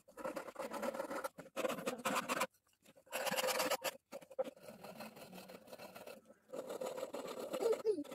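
Steel hand tool scraping and cutting wood in repeated strokes, notching the handle of a wooden ladle; the strokes break off abruptly a few times, and a brief falling tone sounds near the end.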